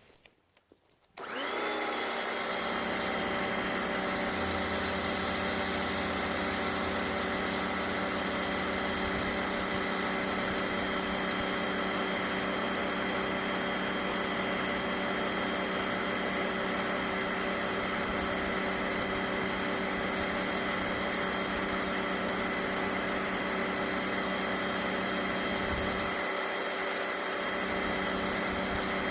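SunJoe electric pressure washer starting up about a second in and then running steadily: an even motor-and-pump whine that rises briefly as it spins up, over the hiss of the high-pressure jet from the 0-degree tip.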